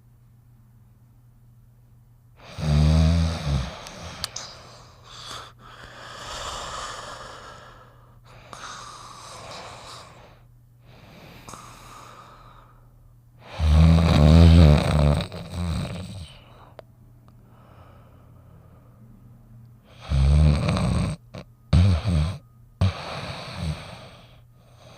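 Snoring in irregular breaths: loud, deep snores near the start, around the middle and near the end, the last loud one followed by a couple of shorter ones, with softer breathing sounds in between.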